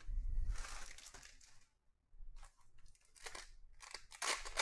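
A foil trading-card pack wrapper being torn open and crinkled by hand: one long rustling tear at the start, then several shorter sharp crinkles.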